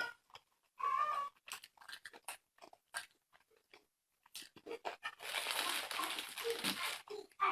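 Close-miked chewing and mouth sounds of someone eating fatty pork belly: a scatter of short wet clicks and smacks, with a stretch of louder crunching chewing about five seconds in.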